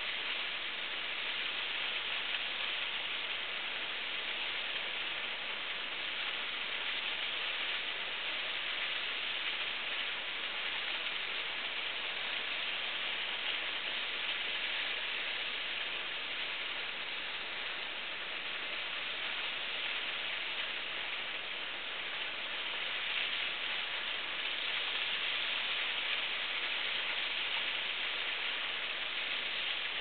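Steady, even rush of water falling down an ice-covered waterfall, a continuous hiss with no breaks or changes.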